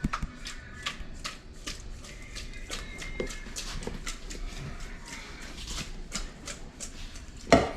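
Kitchen handling sounds while cooking: irregular light clicks and taps, with one loud knock about seven and a half seconds in.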